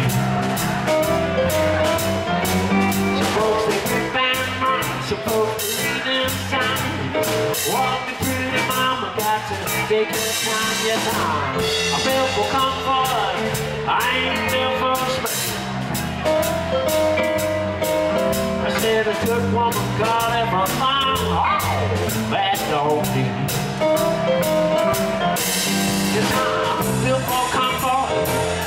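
Live electric blues band playing: electric guitar lead with bent notes over bass guitar, drum kit and keyboard.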